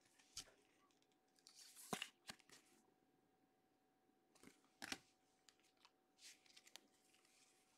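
Near silence with a few faint clicks and plastic rustles of trading cards being handled and slid into sleeves, the loudest about two seconds in.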